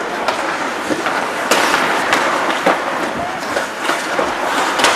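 Ice hockey play on a rink: skate blades scraping the ice, with a string of sharp clacks and knocks from sticks and puck. The strongest knock comes about a second and a half in, followed by a short hiss.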